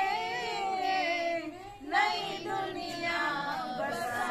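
A woman singing a Hindi film song unaccompanied, in long held notes that waver in pitch, with a brief pause for breath near the middle.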